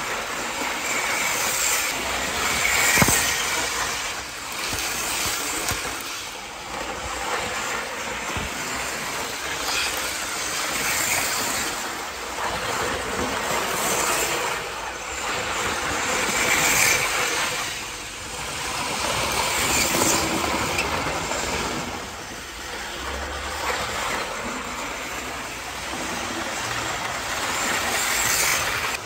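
Hornby APT 00 gauge model train running fast round the layout on a newly fitted replacement motor, with a steady running clatter of wheels on track. The sound swells and fades every three to four seconds as the train passes close by again and again.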